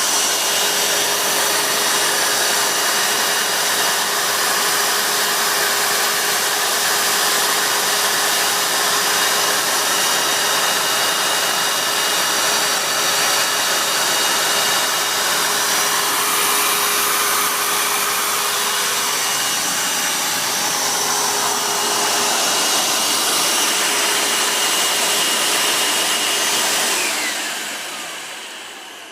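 Hoover WindTunnel U6630-900 upright vacuum's 12-amp motor running steadily with a constant whine, then switched off near the end, falling in pitch and fading as it spins down.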